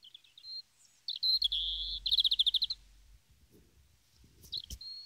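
European robin song played back from a recording: high, thin phrases. The longest comes a second in and ends in a fast run of repeated notes, and a short phrase follows near the end.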